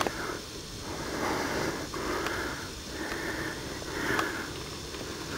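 A person breathing rhythmically in and out close to the microphone, with sniffing through the nose, about one breath a second.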